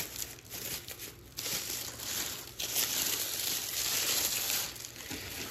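Packaging crinkling and rustling as items are dug out of a delivery box, louder through the middle of the stretch.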